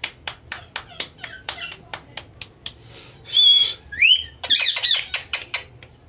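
A run of sharp clicks, about four a second, fades out over the first two seconds or so. About three seconds in, an Indian ringneck parakeet gives a loud, harsh squawk, then quick chirps and whistled notes that glide up and down.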